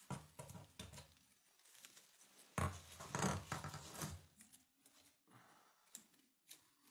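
Faint handling noises of an ivy wreath with tinsel garland and of a small wire ornament hook worked between the fingers: scattered rustles and scrapes, louder for about a second and a half a little before the middle.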